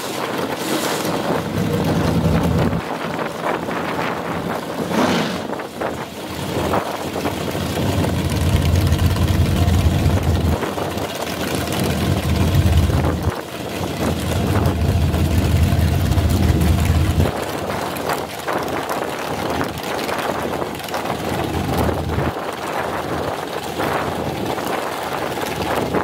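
Dragster engine running at the starting line while staging, its low rumble swelling and easing several times, strongest through the middle, with wind buffeting the microphone throughout.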